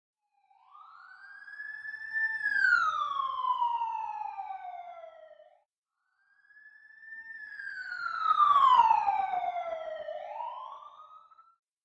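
Siren sound effect, heard twice. Each wail fades in, holds high, then slides down in pitch and fades out. The second ends with a short upward sweep.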